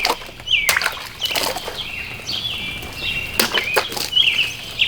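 Fully serrated folding knife slashing through plastic bottles: several sharp, quick cuts. Birds chirp repeatedly in the background.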